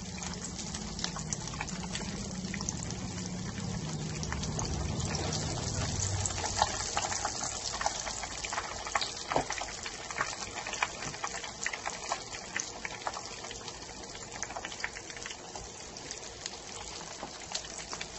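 Breaded pork chop shallow-frying in hot oil in a pan, nearly cooked: a steady sizzle with scattered sharp pops and crackles of spitting oil.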